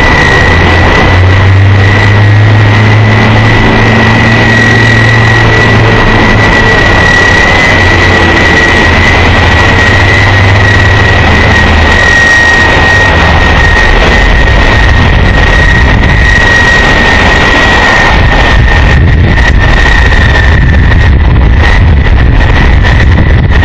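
Boeing 747-200F freighter's jet engines running at low power: a loud, steady high whine over a rushing roar. A low hum underneath fades out about halfway through.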